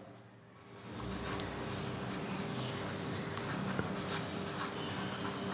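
Marker pen writing on paper: a continuous scratchy scribbling that starts about a second in.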